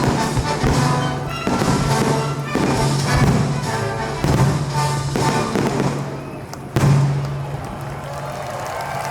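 Fireworks going off over live orchestral music: many bangs and crackles in quick succession, with one last loud bang about seven seconds in, after which the sound thins out.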